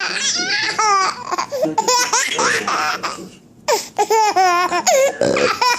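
A baby boy laughing hard in repeated high-pitched bouts, with a short pause for breath a little past three seconds in.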